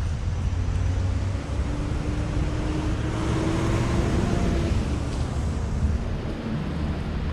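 An engine passing by: a steady motor note that swells, is loudest about halfway through, then fades, over a low wind rumble on the microphone.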